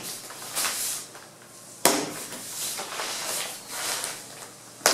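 Handling noises: a plastic-wrapped roll of headliner material rustling as it is handled on top of cardboard, with a sharp knock about two seconds in and another at the very end.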